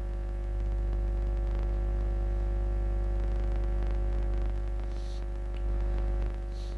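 Steady electrical mains hum with a stack of evenly spaced overtones, unchanging throughout, with a faint hiss over it.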